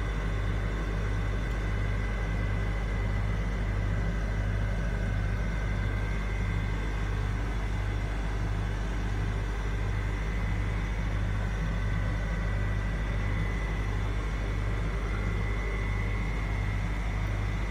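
Steady low machine hum with a low throb that pulses about one and a half times a second, under a faint steady high whine.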